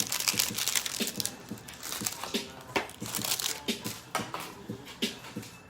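Plastic packaging crinkling and crackling as it is torn open and handled, with irregular sharp clicks of stiff plastic: a pack of card top loaders being unwrapped.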